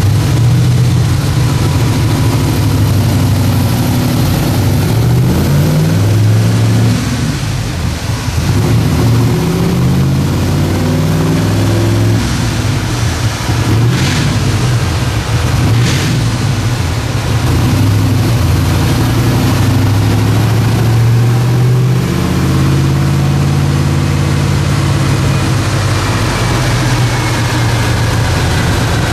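Twin-turbo Ford Cleveland V8 of a De Tomaso Pantera running on a chassis dyno at 6 psi base boost, the engine speed rising and falling several times. Two short sharp sounds come about two seconds apart midway through.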